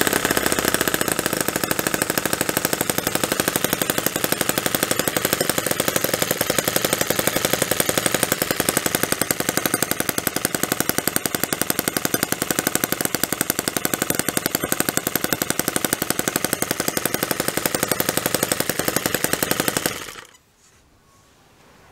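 MUSA F1 2.7cc miniature single-cylinder gasoline model engine running with a rapid, even firing rhythm, then cutting out suddenly near the end.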